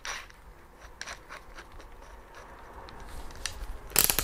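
A DeWalt cordless drill's keyless chuck being turned by hand to fit a masonry bit, with faint rubbing and small clicks. Near the end comes a short, loud rattle of rapid clicks as the chuck is worked tight.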